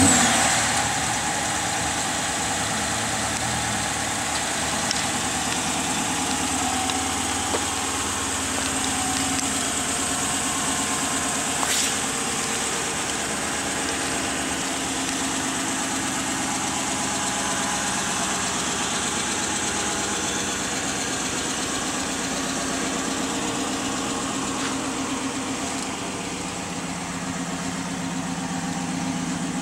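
2013 Dodge Charger R/T's 5.7-litre HEMI V8 just fired up, flaring loud for about a second, then idling steadily.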